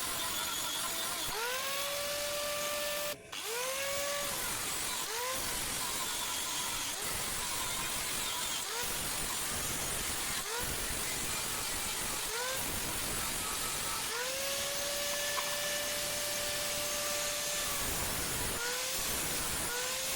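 Handheld electric power tool's motor triggered again and again, spinning up to a steady whine and winding down, mostly in short bursts with two longer runs, over a steady background hiss; likely used to shape the blade of a forged boti.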